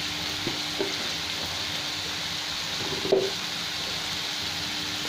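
Diced potatoes sizzling steadily in hot oil in a kadai, with one short knock about three seconds in.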